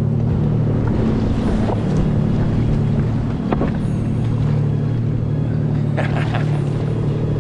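Jet ski engine running steadily, its pitch shifting slightly now and then.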